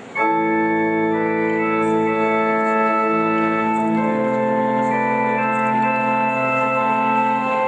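Organ music playing slow, sustained chords. It starts abruptly just after the start and moves to a new chord every second or two.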